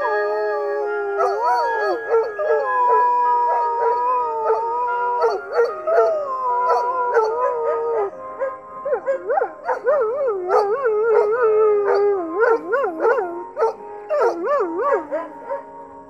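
Borzoi howling along with the 5 o'clock town chime melody played over outdoor public loudspeakers. Long wavering howls sound over the chime's steady held notes and turn into quicker rising-and-falling howls. The howling dies away near the end.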